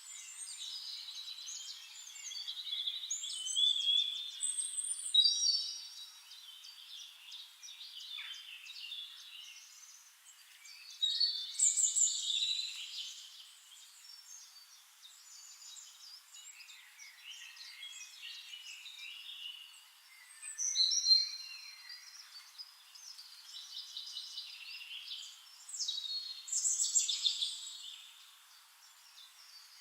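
Songbirds singing in a natural chorus: high chirps, trills and whistled phrases that come in louder bursts every several seconds, with quieter chirping between.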